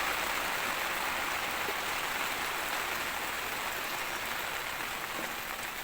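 Steady rain falling, an even hiss with no separate drips standing out.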